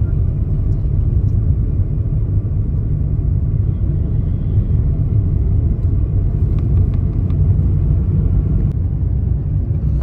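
Loud, steady low rumble with no clear pitch.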